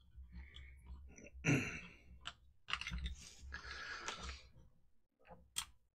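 Clicks and rustling of handling as the opened plastic housing of a GHD SS4 hair straightener and its cord are moved about on a silicone bench mat, in a few separate bursts, with a steady low hum underneath.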